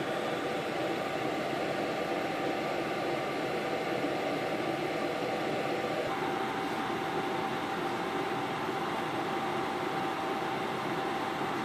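Steady fan noise with a faint whine running under it; one higher tone of the whine drops out about halfway through.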